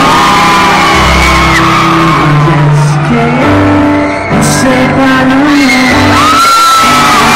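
Loud live pop band music with a singing voice over sustained bass notes, recorded from the audience.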